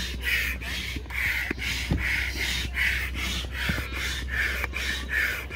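Large hand-operated stand pump being worked up and down, pushing air through its hose into a side air chamber of an inflatable kayak: an even, rhythmic whoosh of air, about two strokes a second.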